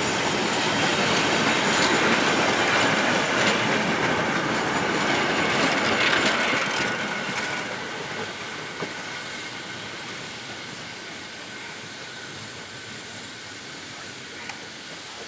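Steam-hauled passenger coaches rolling past on the rails, wheels running over the track with a steady high wheel squeal. About seven seconds in, the sound begins to fade as the last coach pulls away.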